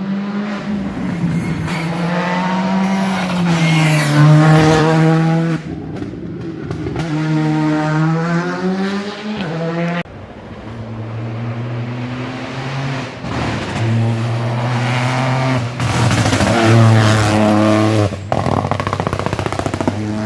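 Rally cars at full attack: a loud engine revving high, its pitch climbing and dropping through gear changes and lifts, with tyre noise. About halfway through, a different, lower engine note takes over abruptly.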